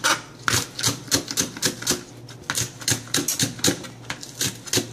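Kitchen knife chopping a green onion into small rounds: quick, sharp knife strikes about four a second, with a brief pause about two seconds in.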